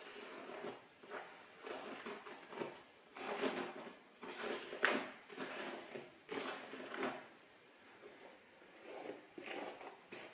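Hairbrush being pulled through long wet hair worked with mousse, a string of about a dozen brushing swishes roughly one a second; the hair tangles.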